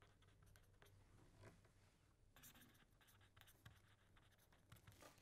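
Faint scratching of a pen writing words on paper, in short uneven strokes.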